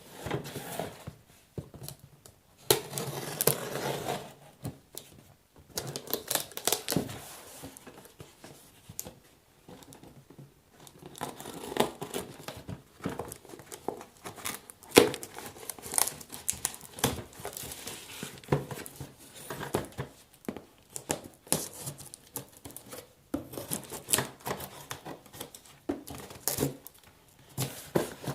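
Cardboard box and packaging being opened by hand: irregular rustling, crinkling and tearing, with sharp clicks and taps throughout.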